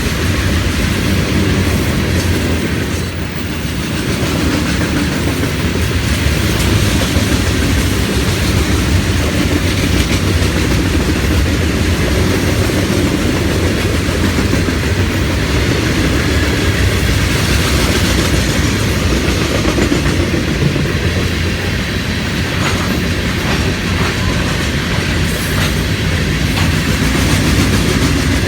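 Florida East Coast freight train's cars rolling past, a steady loud rumble with wheels clattering over the rail joints.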